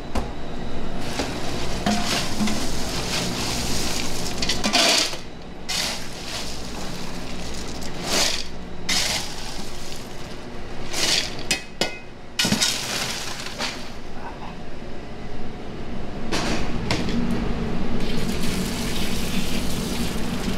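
Irregular clinking and clattering of pots, dishes and ice in a kitchen, with some water sounds, as freshly steamed lobsters are moved into ice to cool them.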